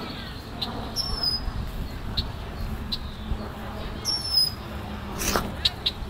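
An agitated bird calling: two high whistled calls that drop in pitch and then level off, then a run of short sharp chips about three a second near the end. A louder sudden sound comes just before the chips, over a low rumble on the microphone.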